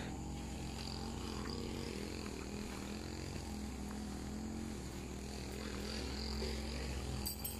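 Steady low drone of a small engine or motor running out of sight, with faint high chirping over it.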